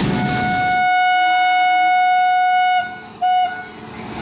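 An electric locomotive's horn sounds a long single-note blast of about two seconds, then a short one about half a second later. Before it, the rumble of a departing passenger train's coaches cuts off under a second in.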